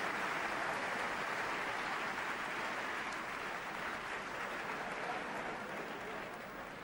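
Snooker audience applauding, the clapping slowly dying away.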